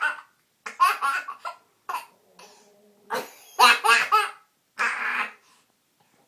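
A small child laughing hard in four bursts of giggles, the last one breathier, falling quiet about a second before the end.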